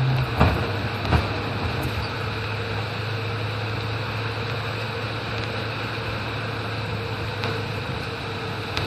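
Steady mechanical hum with a constant hiss, like a running motor or fan, with a couple of light clicks about half a second and a second in.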